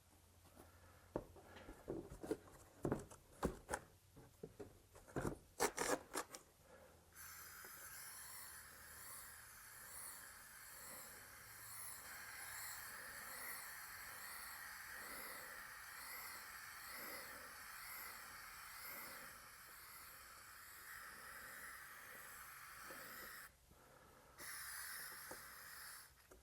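Aerosol spray-paint can: a few seconds of scattered sharp clicks and knocks, then a steady spraying hiss for about sixteen seconds, a brief stop, and a short second spray near the end.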